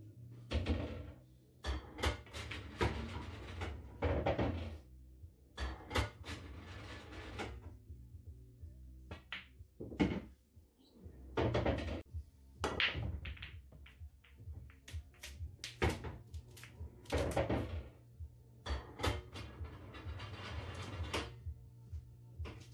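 Pool balls knocking and clacking: in the first half the balls are handled and racked in a triangle, then a break shot sends them clacking off one another and the cushions. Repeated sharp knocks with short ringing tails come in clusters, over a steady low background.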